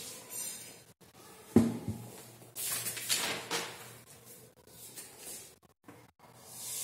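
Sheets of paper rustling as notes are picked up and handled, with one sharp knock about a second and a half in.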